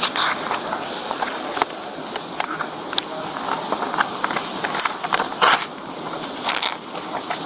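Steady outdoor hiss with insects chirping, broken by scattered clicks and a few louder rustles close to a body-worn camera's microphone.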